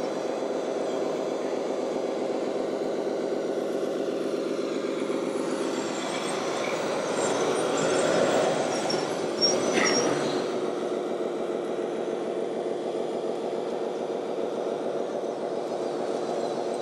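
Simulated diesel engine sound from a radio-controlled model truck's sound module, running steadily at one pitch. It swells briefly about halfway through, with a short click.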